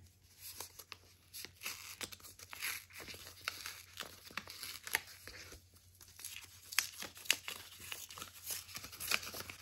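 A small wrapped package being torn open by hand: irregular ripping and crinkling of the wrapping, in short bursts of crackle.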